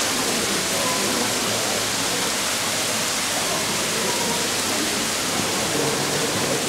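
Indoor ornamental fountain splashing steadily: many small dome-shaped water jets falling back into a round pond, giving an even rushing hiss.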